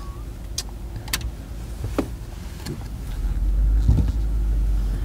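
A car driving over a sandy dirt track, heard from inside the cabin: a steady low rumble of engine and tyres, with a few sharp clicks and rattles. The rumble grows louder about three seconds in.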